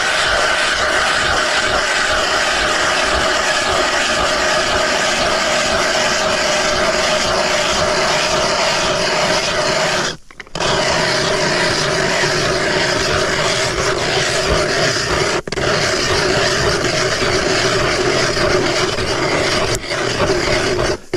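Hand-cranked ice auger drilling through thick lake ice: a steady grinding and scraping as the blades shave the ice. The cranking stops briefly about ten seconds in and then carries on.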